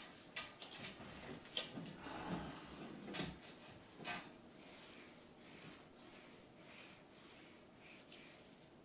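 Small paint roller worked over a wall, a rubbing hiss that rises and falls with each stroke, with a few light knocks in the first few seconds.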